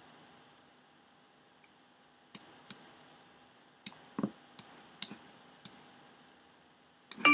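Scattered single clicks of a computer mouse, about seven over several seconds, with a soft low thump about four seconds in.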